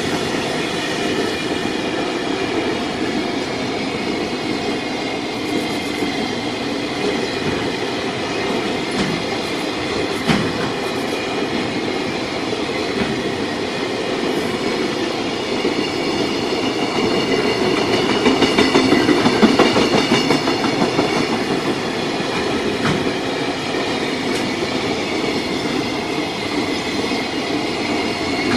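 JR Freight container train rolling past at speed: a steady rumble of wagon wheels on the rails, with a steady high ringing above it. It grows louder with a fast clatter about two-thirds of the way through.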